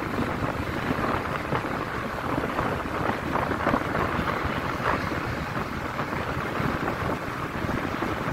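Steady rush of wind buffeting the microphone on a moving motorcycle, with the bike's riding noise mixed in underneath.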